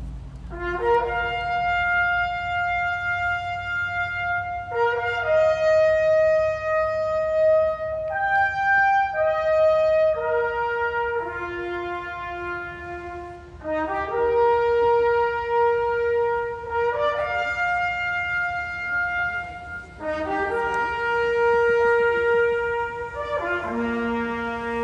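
Slow brass music, trumpet- or horn-like: a melody of long held notes in phrases with short breaks between them.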